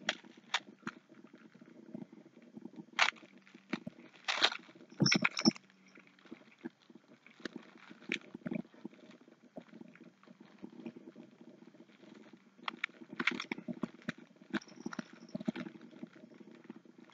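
Handling a foil Pop-Tart wrapper and eating a cold Pop-Tart: scattered short crinkles, clicks and chewing noises. There are a few brief louder bursts about 3 to 5 s in and again near the end, over a faint steady hum.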